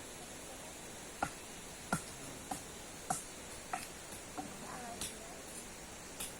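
A knife blade chopping at a piece of wood: about eight sharp knocks, roughly one every half second to second, over a steady hiss.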